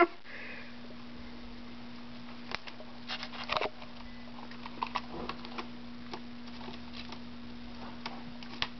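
Scattered light taps and rustles of a pet sparrow pecking at and flinging a noodle, over a steady low hum.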